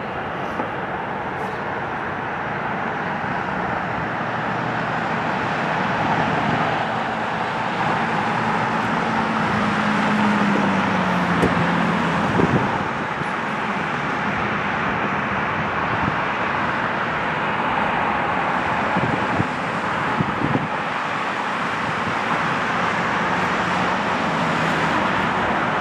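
Steady noise of traffic and distant jet aircraft engines, with a droning tone that falls slightly in pitch about ten to twelve seconds in and a few faint knocks.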